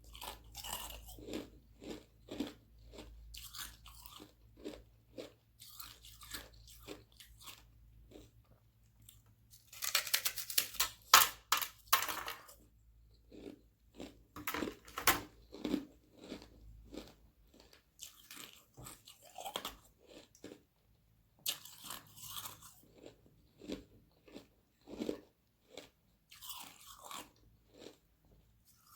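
Thin sheets of frozen carbonated water being bitten and chewed close to the microphone: crisp cracking bites followed by runs of crunching chews, the loudest and densest burst of crunching about ten seconds in.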